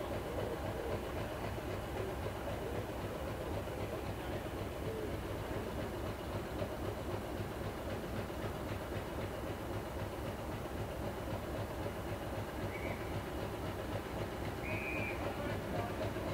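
Class 50 diesel locomotive's English Electric V16 engine idling steadily at a distance, a low even rumble.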